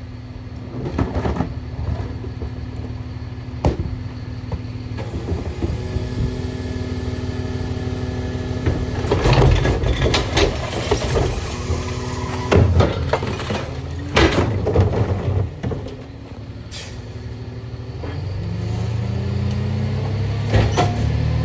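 Rear-loader garbage truck (Freightliner M2 with a McNeilus body) running at a raised engine speed to drive its hydraulic cart tipper, which lifts and dumps a plastic recycling cart into the hopper with several loud bangs and clatters around the middle. Near the end the engine climbs steadily in pitch as the truck pulls away.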